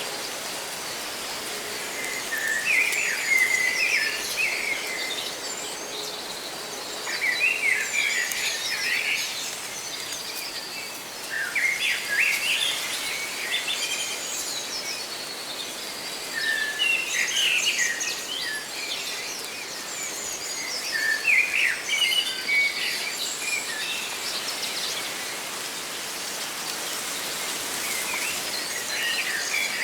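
Songbirds chirping in short twittering phrases that come back every four to five seconds, over a steady hiss of leaves rustling in the wind.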